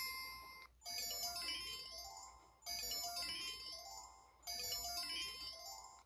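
Built-in ringtone of an LG-LP8700 (Cyon) flip phone: a short electronic chime phrase, a quick run of bell-like notes that restarts three times, about every two seconds, fading away before each restart.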